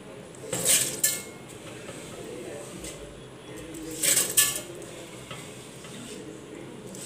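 Soaked finger millet (ragi) grains being pushed by hand off a plate into a stainless-steel mixer-grinder jar. Two short bursts of clatter, about half a second in and again around four seconds in, as the wet grain drops against the steel and the jar rings briefly.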